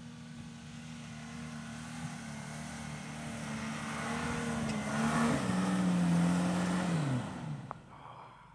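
Nissan Patrol 4WD engine pulling hard up a soft sand track, growing louder as it nears. About five seconds in the engine note steps down in pitch, slides lower again a couple of seconds later, and then falls away near the end.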